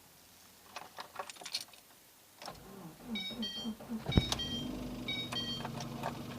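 Keys click in the ignition of a cold VAZ 2110 8-valve engine. The engine cranks, catches a little after four seconds in with a sharp crack, and settles into a steady idle with the distinct cold-start knock (треск) that the owner hears only while the engine is cold. A few short electronic beeps sound during the start.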